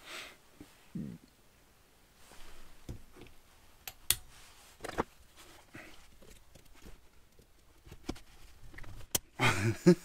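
A steel circlip and circlip pliers clicking and scraping against a starter-clutch freewheel gear as the circlip is worked into its groove. Scattered light metallic clicks, with the sharpest click just after nine seconds in.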